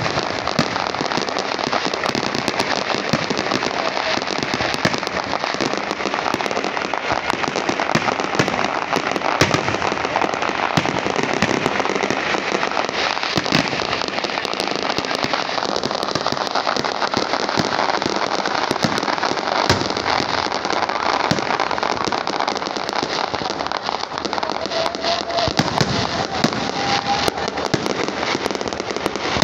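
Aerial fireworks display: a continuous, dense crackle of bursting shells and crackling stars, with many sharp pops layered over it and no let-up.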